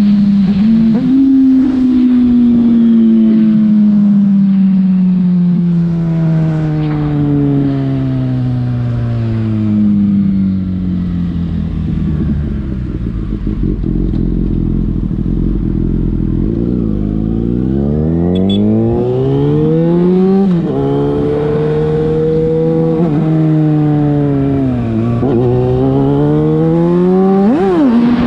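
Yamaha FZ6's inline-four engine through a LeoVince exhaust, on the move: the revs fall slowly for over fifteen seconds as the bike rolls off the throttle, then climb again under acceleration. The pitch drops sharply at gear changes about two-thirds of the way through and just before the end.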